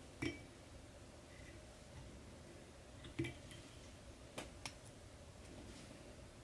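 A few small clicks and taps from hands handling thread, hook and fly-tying vise, the sharpest about three seconds in, over a faint steady room hum.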